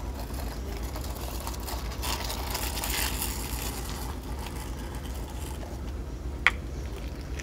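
Plastic toy vehicles rolling and scraping over gritty soil, over a steady low hum, with a single sharp click about six and a half seconds in.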